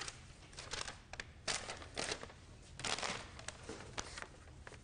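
A sheet of paper rustling and crackling in a series of short bursts as it is handled and unfolded.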